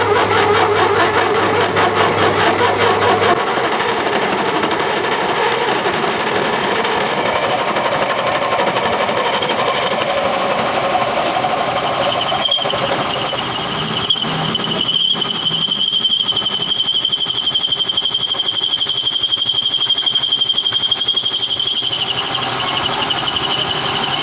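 A metal lathe running as it machines a part, with a continuous rapid mechanical chatter. About halfway in, a steady high-pitched squeal from the cut joins the noise, holds for roughly ten seconds, then stops.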